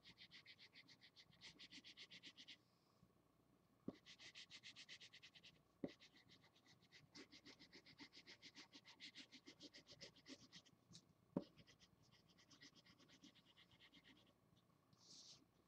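Felt-tip marker scratching over paper in fast back-and-forth colouring strokes, several a second, faint, in runs broken by short pauses. A few light knocks fall between the runs, the loudest about eleven seconds in.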